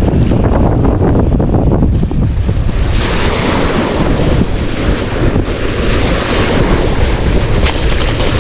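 Wind buffeting the microphone over the wash of sea waves, a steady rumbling noise that turns hissier about three seconds in.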